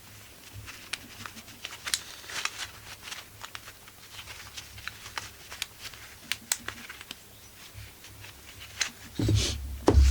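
Light clicks and taps of small metal two-stroke chainsaw engine parts being handled, as the piston ring is put back on the piston. A heavier low thump comes near the end.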